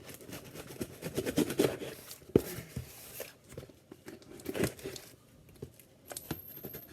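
A shipped package being opened by hand: packing material tearing and crinkling, with a few sharp snaps, the loudest about two and a half seconds in.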